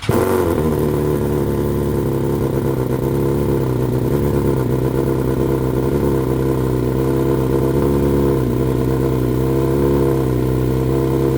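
BMW S1000XR inline-four engine with decat headers and a honeycomb dB killer catching at once and running at a steady high idle. This is the stone-cold engine's automatic high-rev cold-start idle, meant to warm a catalytic converter that is no longer fitted.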